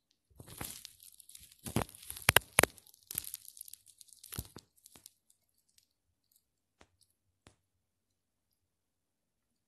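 Crackling, rustling handling noise right at a phone's microphone for about five seconds, with two sharp clicks near the middle, then a few faint scattered clicks.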